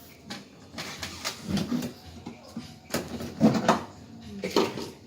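A series of irregular knocks and scrapes from ice being chipped and pried loose inside a refrigerator freezer.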